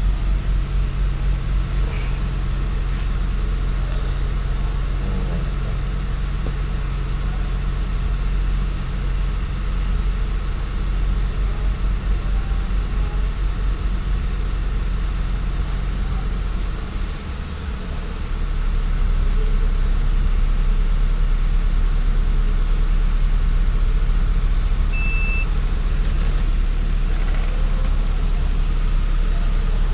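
Mercedes-Benz SLK 350's V6 engine idling steadily with a low, even rumble. About seventeen seconds in it dips briefly, then runs on a little louder.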